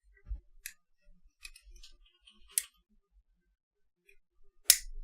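Small plastic parts of a compact digital camera clicking and snapping as they are pried apart, with a louder sharp snap near the end.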